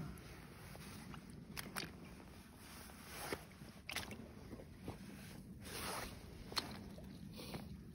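Footsteps in rubber boots crunching over loose creek-bed gravel, one step about every second at an uneven pace.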